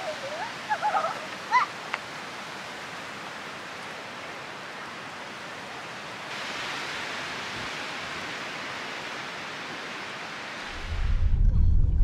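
Steady rushing of wind across a rippling lake, a little louder from about halfway through, with brief voices in the first two seconds. Near the end it gives way to the low rumble of a car driving.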